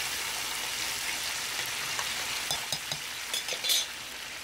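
Ocean perch fillets deep-frying in a pot of hot oil, a steady sizzle. From about two and a half seconds in, a few sharp clicks of the spoon against the pot as the fillets are turned, the loudest near the end.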